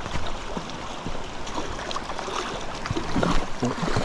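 Shallow creek water splashing and sloshing around wading legs in irregular splashes, over the steady rush of the stream.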